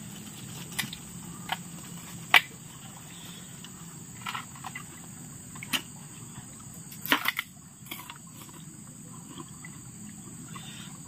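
Steady high-pitched insect chorus of crickets, with scattered sharp clicks and taps from eating. The loudest click comes about two and a half seconds in, and a quick cluster of clicks follows around seven seconds.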